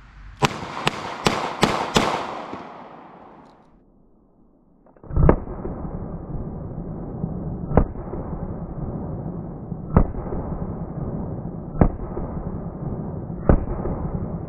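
Taurus Model 85 five-shot .38 Special revolver firing light 158-grain lead round-nose handloads. Five quick shots in about a second and a half, then, after a short lull, five more shots about two seconds apart. The second string sounds duller, over a steady hiss.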